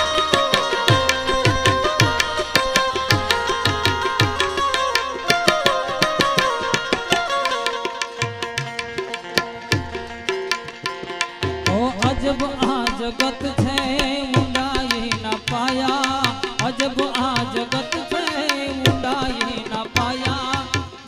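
Instrumental introduction to a Gujarati song: harmonium holding and moving through melody notes over a steady hand-drum beat. About halfway through, a wavering, gliding melodic line joins in.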